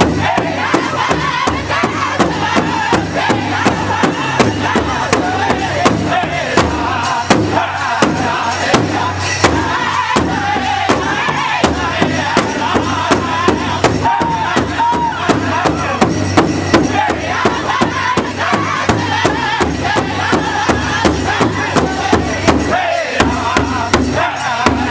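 Powwow drum group singing together around one large hide drum, the singers striking it in unison with drumsticks in a steady, even beat under high-pitched group singing.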